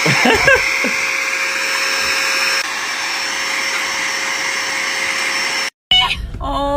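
Electric air duster for cleaning computers running steadily: rushing air with a constant high whine. It cuts off abruptly about a second before the end.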